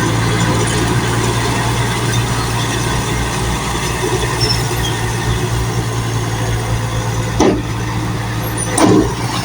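Heavy construction machine's engine running steadily, with two short sharp sounds near the end.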